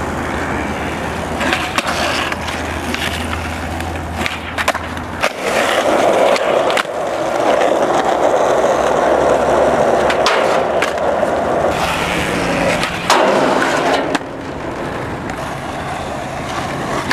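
Skateboard wheels rolling over a hard court surface with a steady rolling rumble, loudest through the middle. Several sharp clacks of the board are scattered through it.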